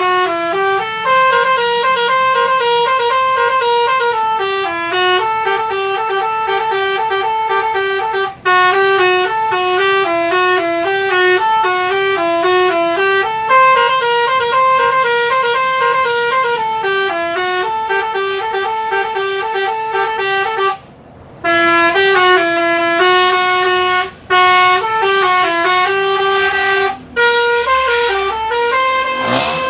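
Basuri telolet horn, a multi-trumpet musical vehicle horn, playing a melody note after note, loud and steady. It stops briefly several times, with the longest gap about two-thirds of the way through.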